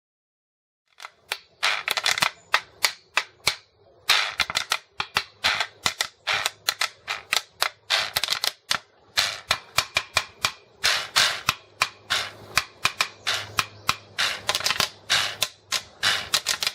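Hand percussion playing sharp, dry strikes in a quick, uneven rhythm, starting about a second in.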